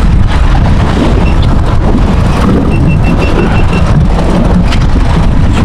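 Steady low rumble aboard a boat, with a short run of about seven quick high electronic beeps a little past halfway through.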